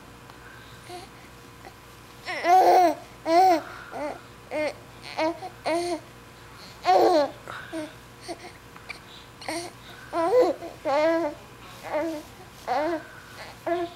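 A young infant babbling and cooing on his tummy: a string of short, high-pitched vocal sounds that starts about two seconds in and goes on every half second or so.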